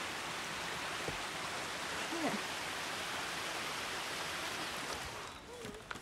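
Steady rushing of a stream's running water, an even hiss that drops away a little after five seconds in.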